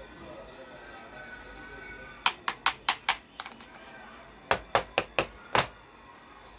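Sharp taps of hard objects knocking together, in two quick runs of about five each, over faint background music.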